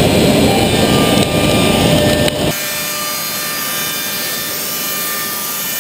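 Router spindle of a Homag BAZ 32/50K CNC machining centre cutting a wood panel: a loud, dense cutting noise. About two and a half seconds in it drops suddenly to a quieter, steady machine hum with faint steady tones.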